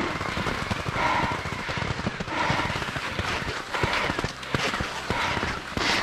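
Cross-country skis sliding and scraping on snow in a steady uphill stride, a swish about every second and a half, with many small clicks and knocks of poles and bindings.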